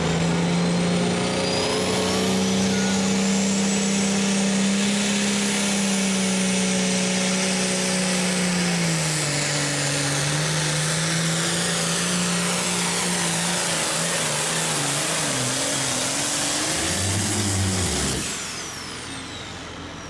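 Turbocharged diesel engine of a John Deere hot farm stock pulling tractor running flat out under heavy load as it drags the weight sled, with a high turbo whistle over the engine note. About halfway through the engine pitch sags and wavers as the load builds. Near the end the engine drops off and the turbo whine falls away.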